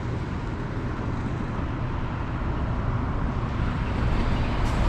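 Road traffic: a steady rush of passing cars, growing a little louder about four seconds in.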